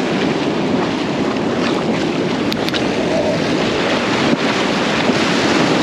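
Ocean surf breaking and washing up a sandy beach, a steady rushing wash of waves, with wind buffeting the microphone.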